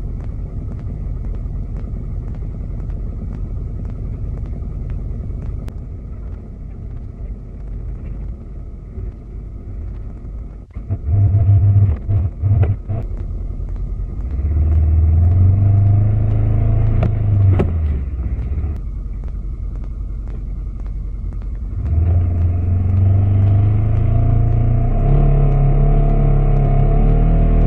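Side-by-side UTV engine heard from inside the open cab. It runs low and steady at first. About eleven seconds in it is revved in a few short blips, then runs at higher throttle with rises and falls, and holds its highest revs near the end.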